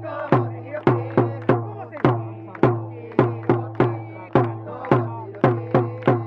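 Japanese baseball cheering section performing a player's cheer song: a drum struck about twice a second, with the fans chanting the song in chorus.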